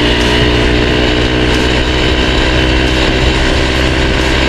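Yamaha Aerox 155 scooter's single-cylinder engine running steadily through a JVT V3 adjustable aftermarket exhaust, set to its mid position. The engine note eases slightly lower over the few seconds.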